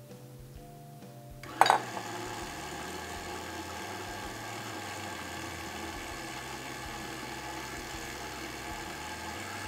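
A sharp knock about a second and a half in, then a stand mixer's motor running steadily at low speed, beating flour into cake batter in a glass bowl.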